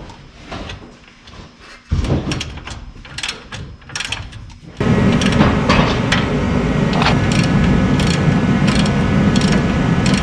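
Metal tool clanks and clicks while working on the truck's front end, then about five seconds in a loud, steady machine drone starts suddenly and keeps running.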